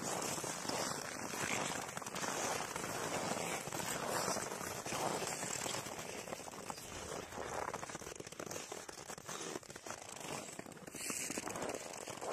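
Crunching and crackling of feet on dry snow frozen hard at about minus 45 °C, a dense, steady crackle.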